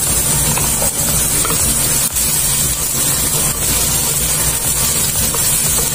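Chopped shallots and garlic sizzling in hot oil in a nonstick wok, a steady hiss, with a few light spatula scrapes as they are stirred. A steady low hum runs underneath.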